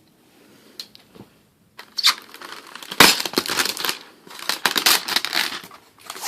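Packing material crinkling and crackling in irregular bursts as it is pulled off and unwrapped, starting about two seconds in.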